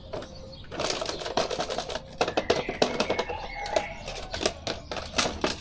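A cardboard toy box and its clear plastic blister packaging being handled and opened, giving a quick, irregular run of crinkling and clicking from about a second in.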